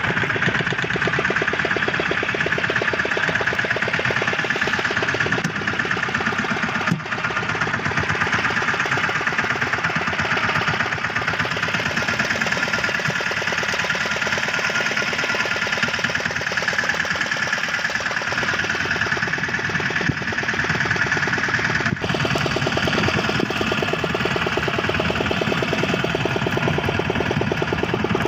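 Small fishing boat's engine running steadily, a fast even pulse with no change in speed.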